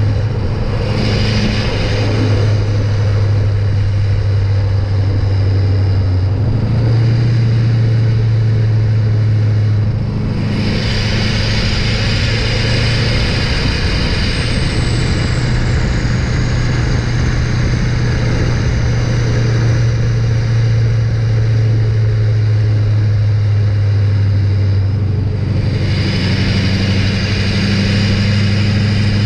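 LLY Duramax 6.6-litre turbodiesel V8 heard at its tailpipe while the truck drives: a steady exhaust drone whose pitch steps up and down a few times as engine speed changes. A high rushing hiss rises over it for long stretches.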